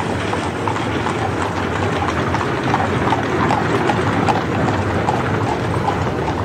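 Horses' hooves clip-clopping in a quick irregular patter over a steady noisy rumble.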